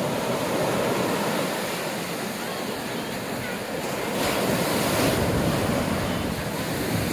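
Ocean surf rushing onto the beach, with wind buffeting the microphone; the rush swells from about four seconds in.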